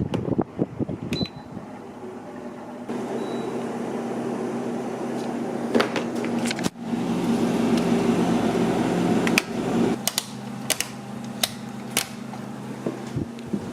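Microwave oven running with a steady hum for about seven seconds, starting just after a short beep and cutting off suddenly. Scattered clicks and knocks come before and after it.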